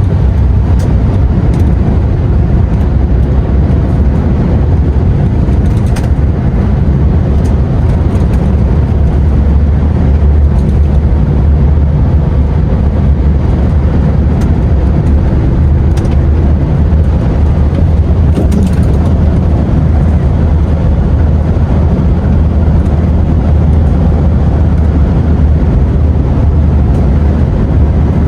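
DAF XF truck driving at a steady speed: diesel engine and road noise making a steady low rumble, with a few faint clicks.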